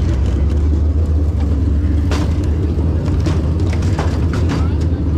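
Dirt late model race car's V8 engine idling, a steady low rumble heard from inside the cockpit, with a few sharp clicks and knocks over it.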